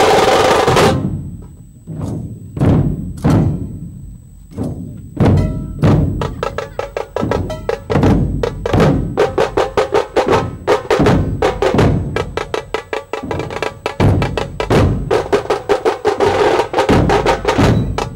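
Dhol tasha drumming: big dhol barrel drums beaten with sticks together with sharp tasha snare strokes, starting as a few spaced heavy beats and quickening into a fast, dense rhythm from about six seconds in. A loud steady noise cuts off about a second in.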